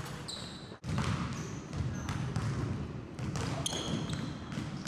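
Basketball bouncing on a hardwood gym floor, with sneakers giving several short, high squeaks as the player cuts and moves.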